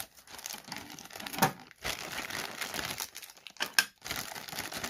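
Thin clear plastic toy bag crinkling and rustling as hands squeeze it and work a toy out of it, with a couple of sharper crackles, about a second and a half in and again near the end.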